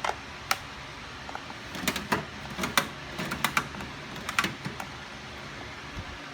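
A run of sharp, irregular clicks and knocks as metal toolbox parts are handled, over a steady fan hum.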